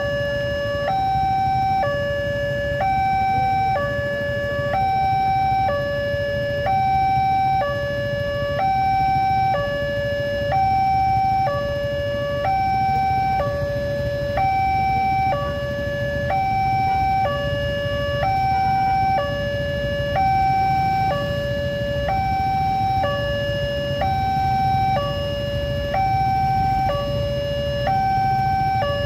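Railway level-crossing warning siren sounding a two-tone high-low signal, each tone held about a second and repeating evenly, the warning that the barrier is down for an approaching train.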